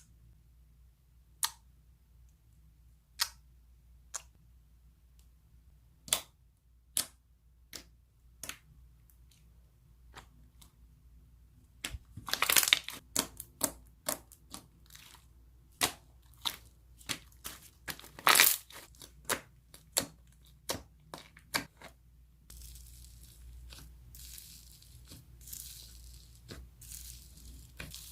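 Slime being handled and stretched: scattered sharp pops and clicks, coming faster and louder about twelve seconds in, then turning into a continuous crackly crinkling from about twenty-two seconds on.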